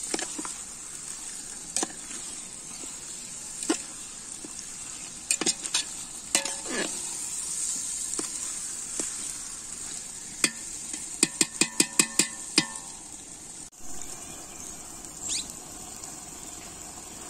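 Marinated chicken sizzling and frying in an aluminium pot over a wood fire while it is stirred with a stick, with scattered knocks against the pot and a quick run of about seven knocks a little past halfway. Near the end the sizzling breaks off abruptly, leaving quieter open-air ambience with one short high chirp.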